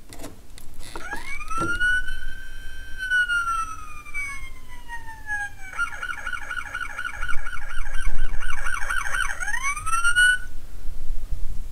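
Electronic siren sound effect from a Jada toy Ford Mustang police car, set off by its try-me button: a wail that rises, holds and slowly falls, then a rapid yelp at about three to four cycles a second, a last rise, and a sudden cut-off about ten seconds in.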